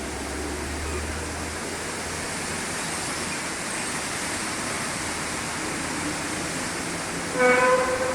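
A steady hiss of outdoor background noise, with a low rumble that stops a second or two in. About seven seconds in, a loud, drawn-out, horn-like tone with several overtones starts: the unexplained 'trumpet sound'.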